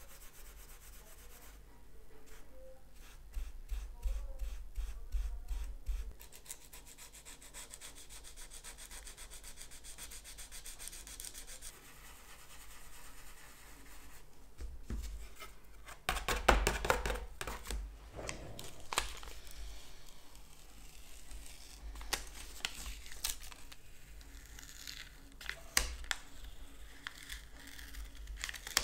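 Steel wool and sandpaper scrubbed by hand over a painted stencil on a plexiglass sheet, in runs of quick back-and-forth scraping strokes, with a louder bout of harder scrubbing about halfway through.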